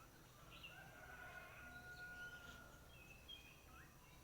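Faint bird calls: several short rising chirps and one long, steady held call about a second in, over a low background hum.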